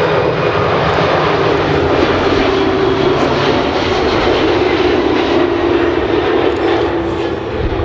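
Airbus A330 jet engines on final approach and touchdown, passing close by: a loud steady rush with a whining tone that slowly falls in pitch as the airliner goes past.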